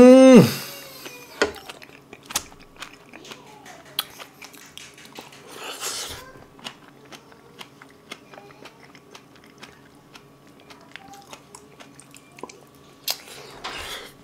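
Close-miked mouth sounds of a person chewing braised kimchi with their hands, wet clicks and smacks scattered through. These start after a brief voice exclamation that rises and falls in pitch.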